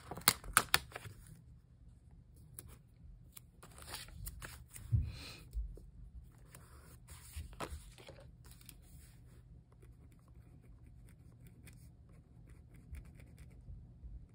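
Paper handling at a desk: planner pages and sticker sheets rustling and tearing. A cluster of sharp clicks comes in the first second, a louder rustle about four to five seconds in, then faint light taps.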